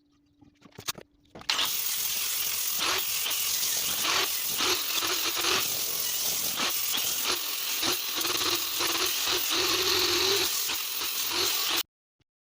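Electric arc welding: a steady crackling sizzle with irregular pops that starts suddenly and cuts off sharply after about ten seconds, as the arc is struck and broken.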